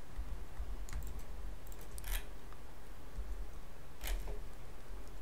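About three separate clicks of a computer mouse as items are picked in a drawing program, heard over a low steady hum.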